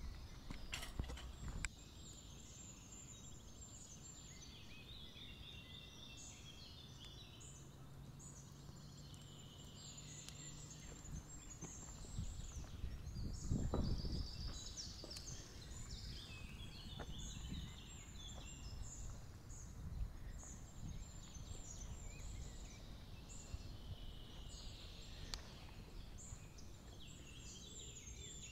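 Small songbirds chirping and singing on all sides in a mountain meadow, with a few footsteps on a dirt path at the start. About halfway through, water from a pipe splashes into a metal trough, the loudest sound.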